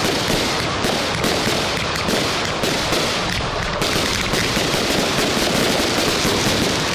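Fireworks display firing a rapid, unbroken volley of bangs and crackling, the reports running together into a near-continuous crackle in the second half.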